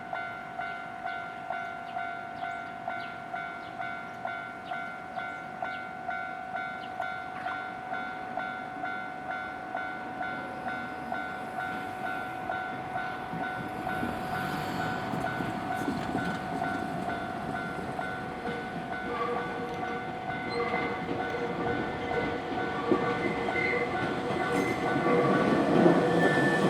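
A Japanese railway level-crossing warning bell dings steadily at nearly two strikes a second. A Nankai Koya Line train approaches, its rumble building from about halfway and growing loudest near the end as it reaches the crossing.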